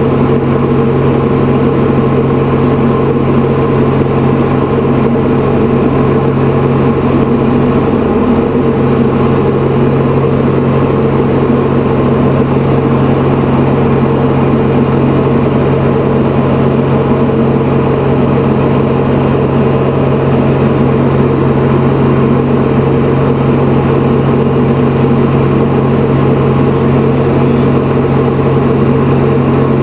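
Diamond DA40 single-engine piston engine and propeller heard from inside the cockpit in flight: a loud, steady drone at constant power with no change in pitch.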